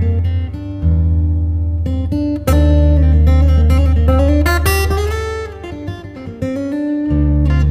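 Background music led by acoustic guitar, plucked and strummed notes over a steady low bass.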